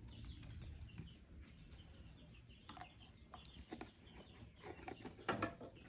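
Faint bird calls in the background: a few short calls scattered through, the loudest one near the end.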